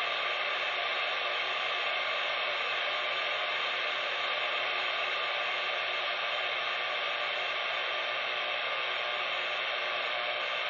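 Steady static hiss from a CB radio's speaker, with no station coming through.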